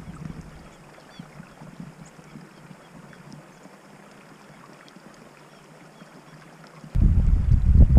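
Quiet outdoor background with a few faint ticks. About seven seconds in, a sudden loud low rumble starts: wind buffeting the microphone.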